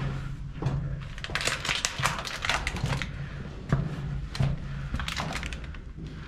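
Footsteps and scuffing on the stone floor of a narrow rock-cut tunnel, a rapid, uneven run of clicks and scrapes, over a low hum.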